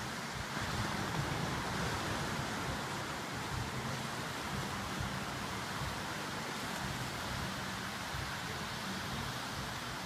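Steady road and engine rumble heard from inside a moving vehicle, a constant rushing hiss over a low drone.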